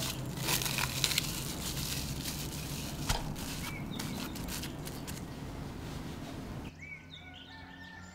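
Plastic cling film crinkling and crackling as it is stretched and pressed over a glass mixing bowl, thinning out after the first few seconds. Near the end the sound drops away suddenly to a much quieter background.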